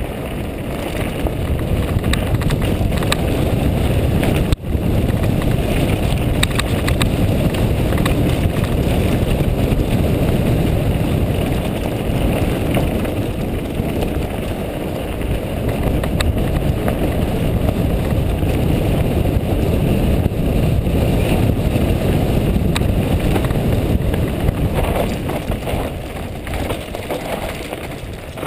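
Steady rumble of wind buffeting the microphone together with mountain bike tyres rolling fast over loose gravel and rock, with small rattles and knocks from the bike on the rough trail.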